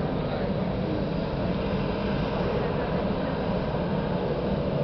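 Jet airliner taxiing, its engines giving a steady rumble with a low hum that does not rise or fall.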